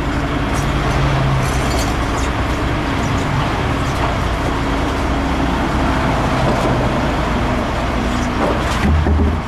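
Steady road-traffic noise from vehicles passing on the highway, with engine tones rising and fading, and a short louder low rumble about nine seconds in.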